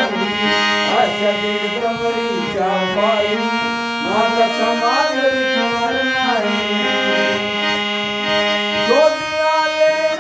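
A man singing a Bhim geet, accompanying himself on a hand-pumped harmonium. The harmonium's reeds hold a steady low note under the sung melody, which slides between notes.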